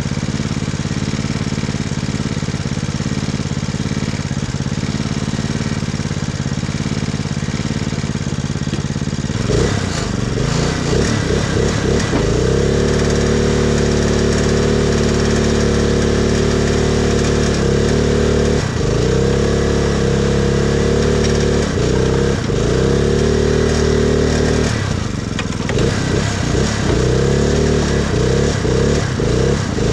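Engine of a custom Craftsman riding mud mower running steadily, then revved hard about a third of the way in and held high. The revs drop and climb again several times as the mower, stuck axle-deep in mud, strains for traction.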